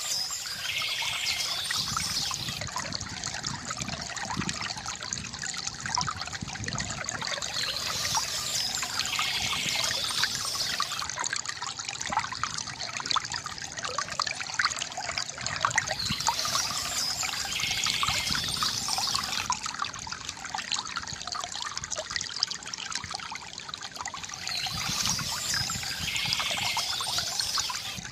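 Shallow stream water trickling and babbling over stones, steady and continuous, with short high bird calls recurring every several seconds.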